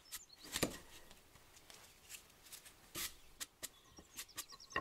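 Hand sanding a square ash leg by hand with abrasive paper: a run of short, uneven rubbing strokes on the wood.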